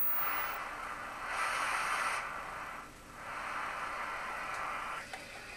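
Static hiss from a vintage tube TV's speaker with no programme sound coming through, brighter for a moment about a second and a half in and dipping briefly about three seconds in. The missing sound is the fault being traced: the audio output tube is not working.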